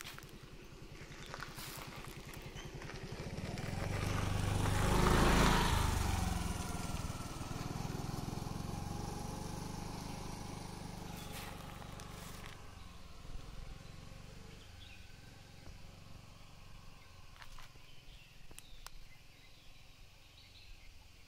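A motor scooter passes close by, its engine swelling to a peak about five seconds in, then fading slowly as it rides away.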